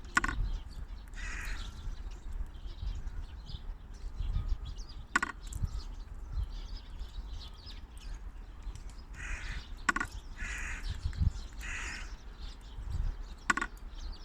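Squirrel feeder making its odd noise as a squirrel works it: four sharp clacks with a short ring, spread over the stretch, and short raspy creaks in between that sound something like a crow's caw.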